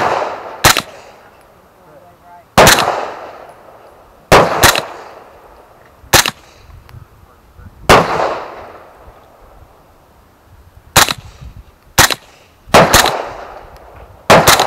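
Gunshots from a suppressed 9mm AR-style carbine (Rock River Arms LAR9 with a Gemtech Trinity silencer), fired one shot at a time at an uneven pace. There are about a dozen sharp cracks, some in quick pairs, each with a short echoing tail.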